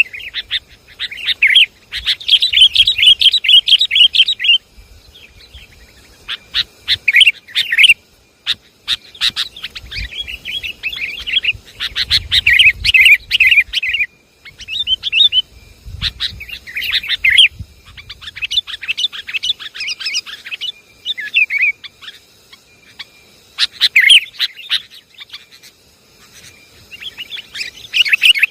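Sooty-headed bulbul (kutilang) calls played as a bird-trapping lure: bursts of quick, chattering chirps in short phrases with brief pauses between them.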